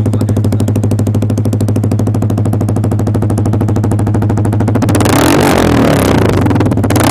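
Yamaha R15 V3's 155 cc single-cylinder engine idling steadily through an aftermarket Austin Racing full-system exhaust in carbon fibre finish, then revved from about five seconds in, the pitch climbing near the end.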